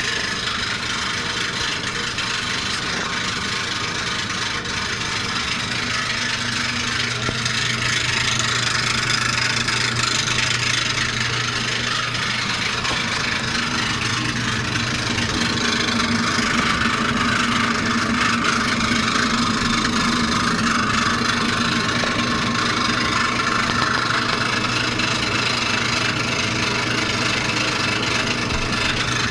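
Maytag washing machine in its initial spin, the drum turning with an odd noise that the owner cannot identify: a steady low hum under a broad noise that grows louder about halfway through.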